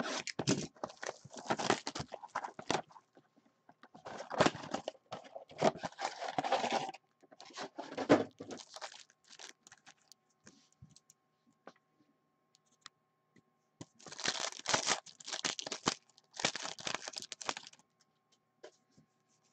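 A cardboard blaster box of 2018-19 Upper Deck Series 1 hockey cards and its foil card packs being torn open and crinkled by hand. The tearing comes in several noisy bursts, with a quiet pause of a few seconds in the middle.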